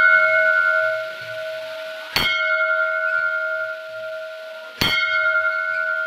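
Hanging temple bell rung by pulling its rope: struck about two seconds in and again near five seconds, each strike ringing on with a clear, steady tone that slowly fades, over the ringing of a strike just before.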